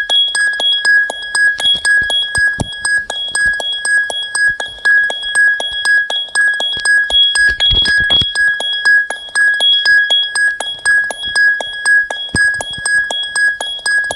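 A ringtone: a high electronic beep pulsing on and off over a quick clicking rhythm, repeating steadily.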